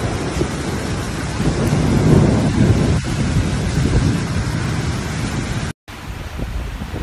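Heavy rain pouring down hard in a storm, a dense steady roar with a low rumble under it. It cuts out for a split second near the end, then the downpour carries on, thinner in the low end.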